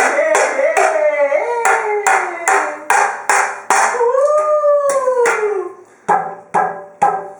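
A dog howling in two long, wavering calls, one at the start and one about four seconds in, over a steady run of loud clattering knocks, about two or three a second.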